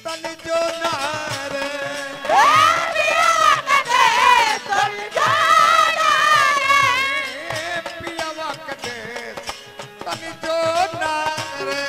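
Live Bhojpuri dugola folk singing: a male singer's amplified voice, sliding and wavering on long held notes, over steady instrumental accompaniment. The voice is loudest for the middle few seconds, drops back, then comes in again near the end.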